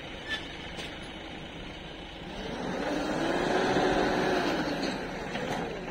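JCB 3DX backhoe loader's diesel engine working, its revs and loudness rising about halfway through as the backhoe arm digs under hydraulic load, then easing off near the end.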